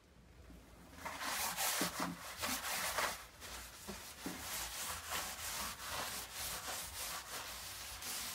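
Paper towel scrubbed back and forth over sanded, textured fiberglass, wiping the bilge down with acetone before painting. The rubbing starts about a second in and goes on in uneven strokes.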